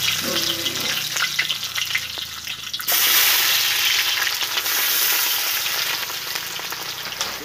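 Hot oil sizzling and spitting in a wide metal wok. About three seconds in it turns suddenly into a louder, fuller frying hiss as chopped ingredients are tipped into the oil, then it carries on steadily.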